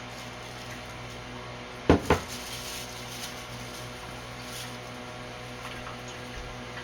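Two quick knocks about two seconds in, a bowl's rim pressed down on the counter to cut the edge off a folded empanada, over a steady low hum.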